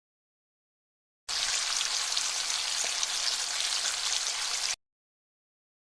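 A steady hiss like sizzling or static begins about a second in and cuts off abruptly about three and a half seconds later.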